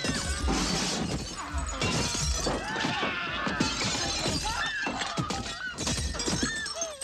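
Car windows being smashed in a film soundtrack: glass shattering and crunching under repeated blows.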